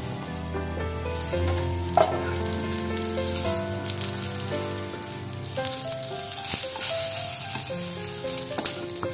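Sliced onion, dry coconut, tomato and garlic sizzling as they fry in oil in a nonstick pan, stirred with a wooden spatula that knocks against the pan, loudest once about two seconds in. A soft background melody runs underneath.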